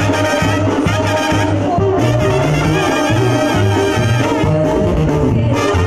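Live Mexican banda playing: trumpets and other brass over a pulsing low bass line that steps between notes, with a woman singing into a microphone.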